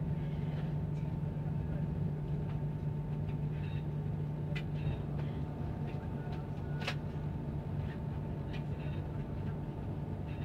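Cabin running noise of an ETR 485 Pendolino electric train rolling slowly at under 30 km/h: a steady low hum with a faint steady high tone, and a few sharp clicks, the clearest about seven seconds in.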